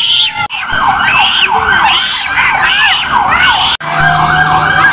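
Electronic sirens of fire-response vehicles in a fast yelp, the pitch sweeping up and down several times a second. The sound drops out briefly twice at edit cuts, and after the second cut overlapping sirens sound over a steady held tone.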